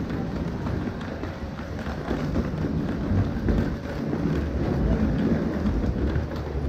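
Busy crowd ambience while walking: a steady murmur of many voices and footsteps, with low rumbling bumps on the microphone.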